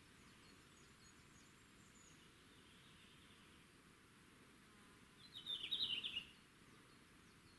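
Red-flanked bluetail singing one short phrase of quick high notes about five seconds in, with faint high chirps earlier.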